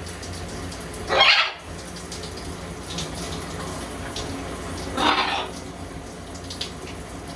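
Shower water running steadily, with two loud, short parrot squawks, one about a second in and another about five seconds in.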